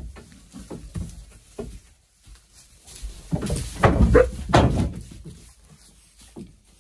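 Farm animals in a pen making a short burst of noise, calls mixed with thuds, loudest from about three and a half to five seconds in.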